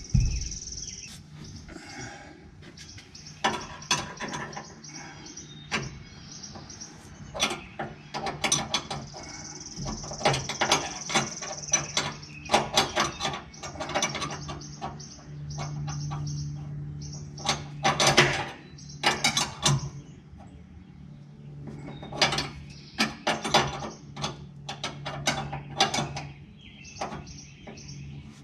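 Wrenches clicking and clinking on fuel line fittings as they are tightened, in irregular clusters of sharp metallic clicks over a steady low hum.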